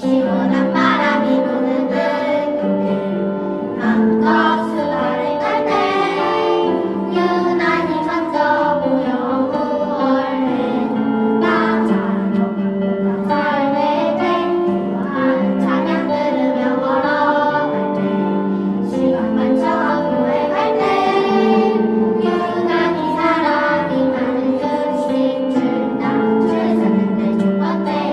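A group of children singing a song in unison with instrumental accompaniment.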